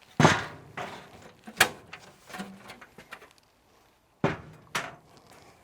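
Furnace access doors being taken off: a few sharp sheet-metal knocks and clunks, the loudest just after the start, a sharp one about a second and a half in, and two more close together near the end.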